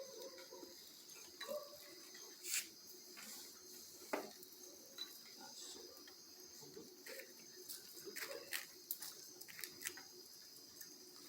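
Faint steady chirring of crickets, with scattered soft clicks and small knocks.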